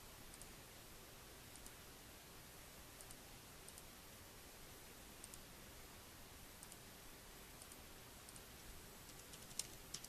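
Faint computer mouse clicks, often in quick pairs, scattered about once a second over a low steady hiss, with a short run of louder keyboard keystrokes near the end as a number is typed in.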